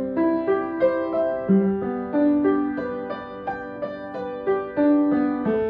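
Piano played slowly in broken chords: single notes struck one after another, about two or three a second, each left to ring on under the next.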